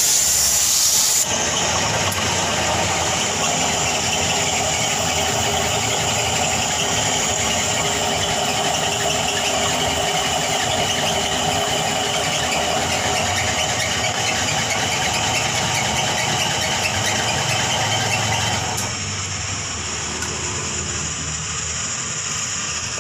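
Hose-fed gas torch burning with a steady hiss while heating a copper radiator tank for soldering. It turns a little quieter about 19 seconds in.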